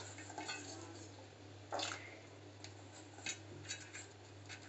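Faint water sounds and small knocks from a steel saucepan of hot water with corn kernels in it, with one louder brief splash-like rush about two seconds in, over a steady low hum.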